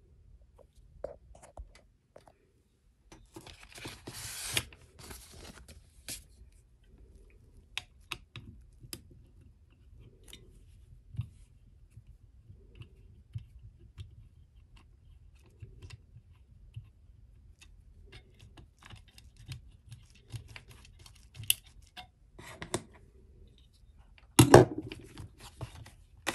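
Small scattered clicks, scrapes and rustles of a flathead screwdriver working the screws of a metal planner ring mechanism loose, with handling of the planner's leather cover and pages. A louder knock about 24 seconds in.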